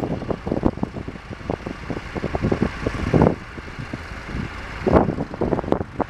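Gusty wind buffeting the microphone, over the distant running of several vintage tractor engines at work ploughing.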